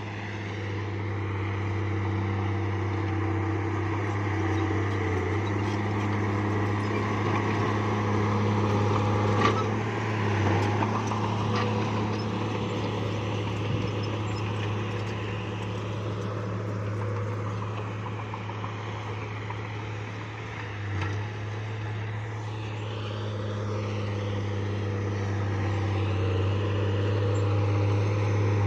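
A bulldozer's diesel engine runs with a steady drone that swells and eases, and a few sharp clanks come about ten to fourteen seconds in.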